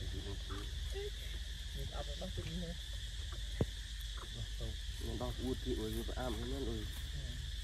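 Macaques giving short, wavering calls, most of them in a burst about five seconds in. A steady high drone of insects runs under them, and there is one sharp click midway.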